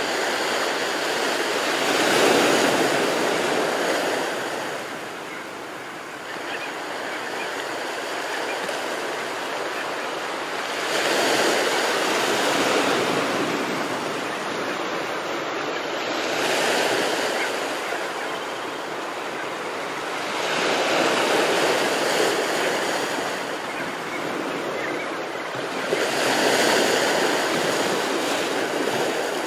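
Ocean waves breaking and washing onto the shore, the surf swelling and fading about every five seconds.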